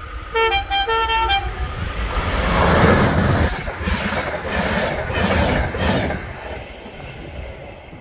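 A passing train sounds its horn in about three short blasts of a two-note chord. It then goes by close with a loud rush and a rhythmic clatter of wheels over the rail joints, fading near the end.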